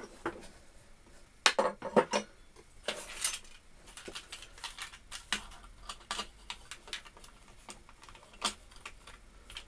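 Scattered sharp clicks and knocks of hard parts being handled as a plastic chuck guard is fitted around a bench drill's spindle housing, with a few louder clinks in the first few seconds.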